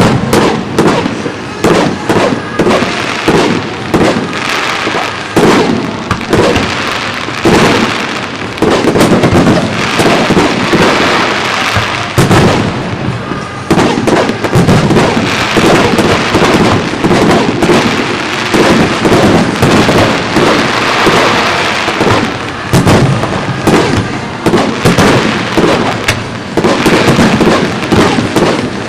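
Aerial fireworks display: shells launching and bursting in a dense, rapid barrage of bangs, many close together, with only brief lulls.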